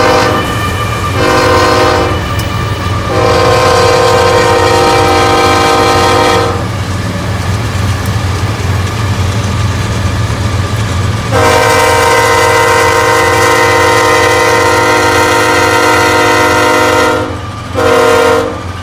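Freight locomotive's multi-chime air horn blowing a sequence of blasts: a short one about a second in, a long one, a pause, a second long one, and a short one near the end. This is the long-long-short-long pattern sounded for a grade crossing. A steady low rumble of the train runs beneath.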